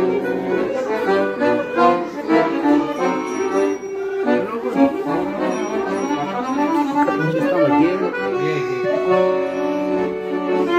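Two chromatic button accordions playing Romanian lăutărească music together: quick ornamented runs of notes, settling into longer held notes and chords about eight seconds in.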